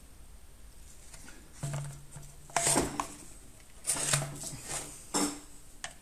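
Hand tools being handled on a workbench: a few sharp clinks and rattles of metal pliers, the loudest about two and a half seconds in, as long bent-nosed pliers are picked up and worked into a strimmer's plastic fuel tank.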